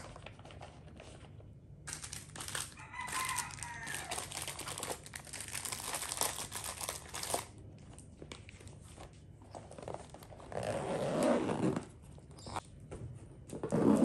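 Packing a child's insulated lunch bag: plastic wrappers and the bag's lining crinkle and rustle for several seconds as items are pushed in. Two louder, fuller sounds of about a second each follow near the end, as the bag is handled and closed.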